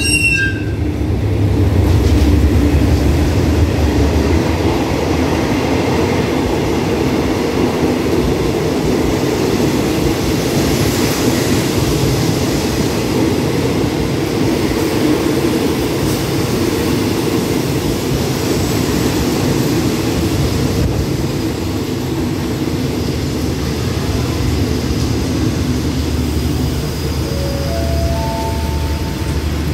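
A diesel-hauled passenger train arriving at a station platform. The locomotive's engine rumbles loudly as it passes in the first few seconds, then the coaches roll by with a steady running rumble. Near the end a few short, higher tones step up in pitch.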